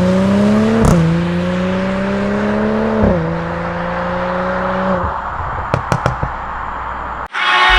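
Mercedes-AMG CLS53's turbocharged inline-six accelerating through an iPE valved exhaust, its pitch climbing steadily with quick upshifts about a second in and again about three seconds in. The throttle closes around five seconds in, followed by a few sharp exhaust pops, and music cuts in just before the end.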